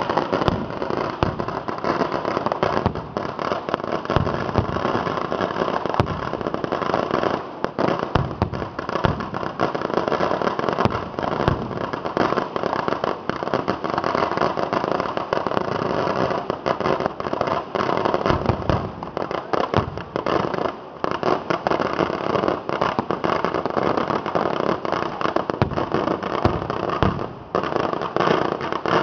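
Vedikkettu, a Kerala fireworks display of firecrackers and ground fireworks: a dense, unbroken run of many small bangs and crackles going off in quick succession, with only a few brief lulls.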